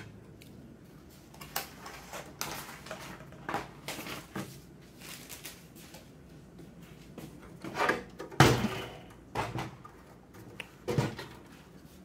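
Scattered knocks, clicks and rustles of a steel PC case being handled and turned over, with a heavier thump about eight and a half seconds in.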